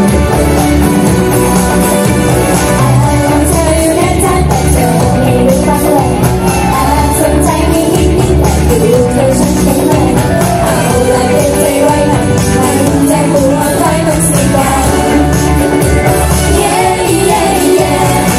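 Idol-pop song played loud, with a strong bass beat and singing running through it.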